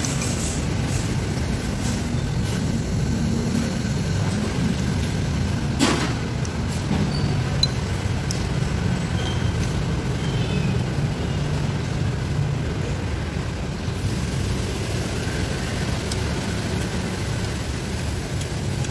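Steady low background rumble of a restaurant dining room, with a single sharp clink of a metal spoon against a soup bowl about six seconds in.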